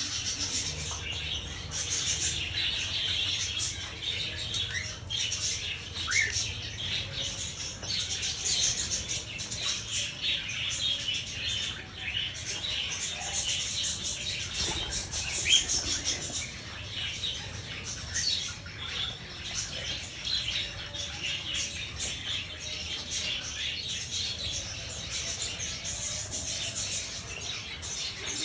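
A flock of cockatiels chirping and chattering continuously, many short calls overlapping, with a few louder rising calls standing out.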